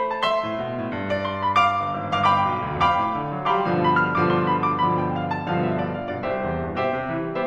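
Background piano music: sustained chords with a melody of struck notes.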